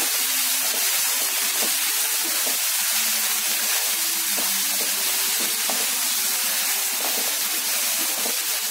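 Chopped onions, tomatoes and fresh mint and coriander leaves sizzling in hot oil in a non-stick kadai as they are stirred with a spatula: a steady frying hiss.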